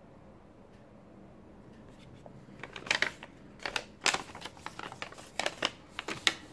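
Faint room noise for about two and a half seconds, then a run of sharp, irregular paper rustles and crackles as a small paper gift packet is handled and washi tape rolls are put back with it.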